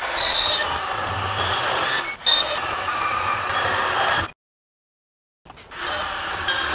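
Ridgid R8604 18V cordless compact band saw running its blade through steel stock clamped in a vise, a steady metallic hiss with high squealing tones. It cuts out completely for about a second after four seconds, then the cutting resumes.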